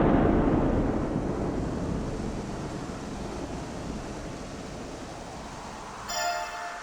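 A deep, noisy rumble fading slowly away over about six seconds, like the tail of a thunderclap or distant blast. Near the end comes a short ringing, bell-like tone.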